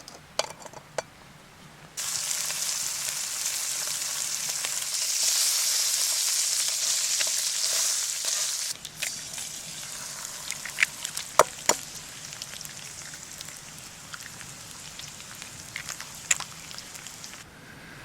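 Food frying in a hot pan: the sizzling starts suddenly about two seconds in, is loudest in the middle, then drops sharply to a quieter sizzle with scattered sharp pops of spattering fat.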